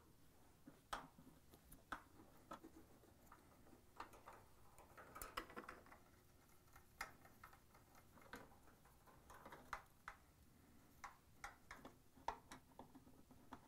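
Faint, scattered clicks and ticks of a Torx screwdriver driving screws into a washer's top frame brace, with light handling of the metal and plastic parts.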